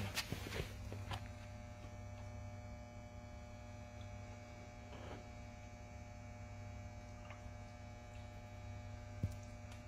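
Steady low electrical hum, with a few faint taps scattered through it.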